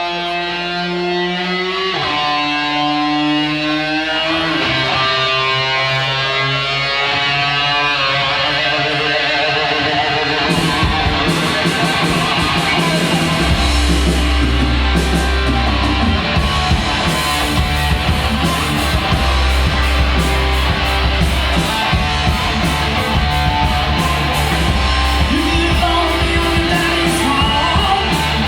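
Rock music: an electric guitar plays gliding slide notes on its own, then drums come in about ten seconds in and a heavy bass a few seconds later, and the full band plays on.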